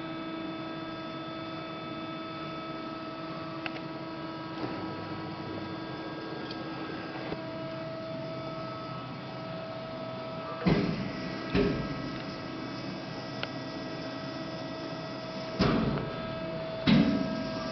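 LVD PPCB 150-ton CNC hydraulic press brake idling with its hydraulic pump motor running: a steady hum with several clear tones. A few dull knocks come in the second half.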